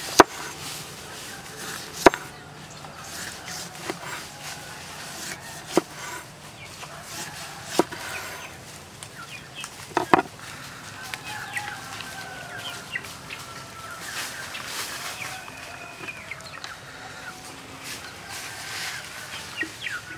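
Cleaver slicing a lime on a wooden cutting board: about six sharp chops, roughly two seconds apart, over the first ten seconds. Birds call in the background in the second half.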